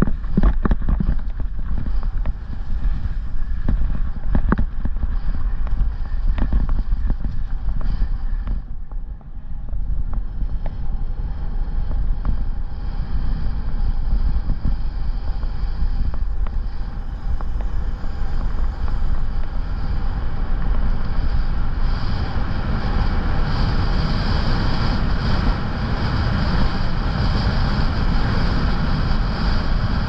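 Mountain bike rolling fast over dirt trail and gravel, with wind on the microphone. In the first several seconds the bike rattles and knocks sharply over rough ground; after a brief dip the sound becomes a steady rush that grows louder later on.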